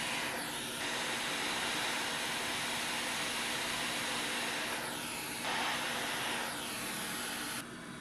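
Quick 861DW hot air rework station blowing a steady hiss of hot air onto a MOSFET to reflow its solder onto the board. The tone shifts slightly a couple of times and the hiss cuts off suddenly near the end.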